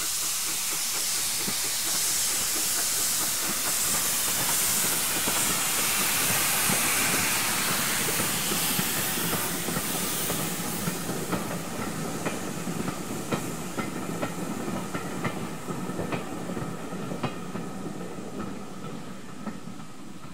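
Two Terrier A1X steam tank engines pass with steam hissing loudly. Then the vintage carriages roll by, their wheels clicking over the rail joints and fading away near the end.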